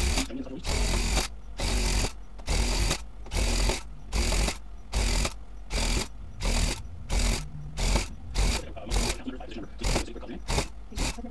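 Handheld electric rug tufting gun running in short repeated bursts as it punches blue yarn into the backing cloth, with the bursts getting shorter and quicker near the end.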